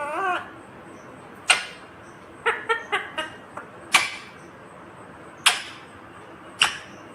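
Indian ringneck parrot (rose-ringed parakeet) calling: a short wavering note at the start, then single shrill squawks every second or two, with a quick run of short chirps about three seconds in.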